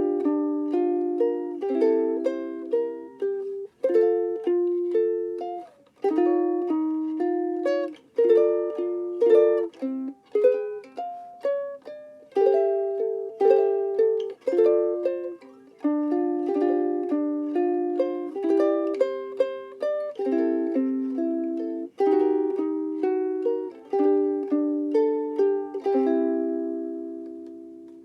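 LUNA MV-3Sf soprano ukulele with a solid Fiji mahogany body being played: a melody over chords, note after note plucked and decaying, closing on a chord left to ring out near the end.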